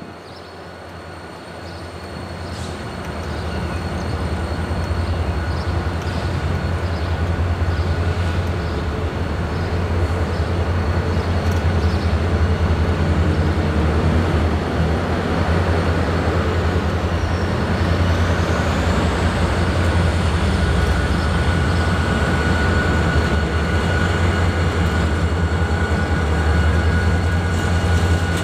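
Diesel locomotive approaching at the head of a short train. Its engine rumble builds over the first several seconds to a loud, steady drone as it draws near, with a thin, steady high whine above it that grows stronger near the end.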